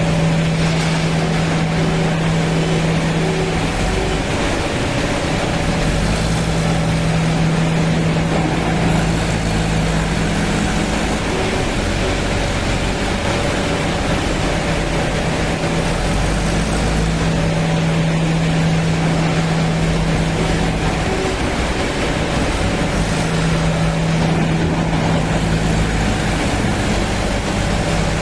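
JCB 3DX backhoe loader's Kirloskar diesel engine running at working revs, with a steady low hum that drops away and returns several times as the load changes.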